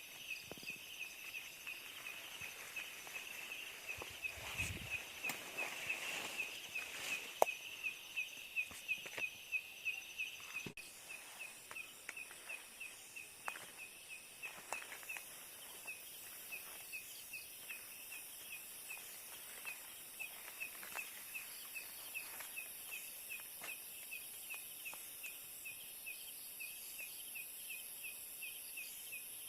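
A cricket chirping steadily in a quick even run of short high chirps, over a high hiss of other night insects, with a few faint knocks and rustles in the first ten seconds or so.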